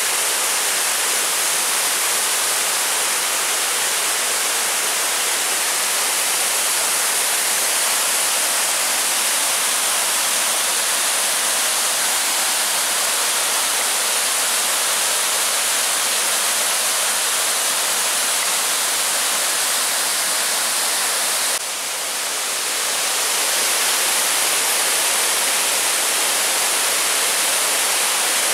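Waterfall cascading over rock ledges: a steady, even rushing hiss of falling water. About three quarters of the way in, the level drops briefly and then swells back up over a couple of seconds.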